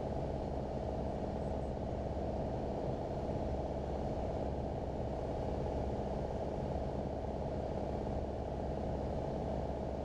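Piston engine and propeller of a light single-engine airplane running steadily in cruise flight, an even drone with no change in pitch.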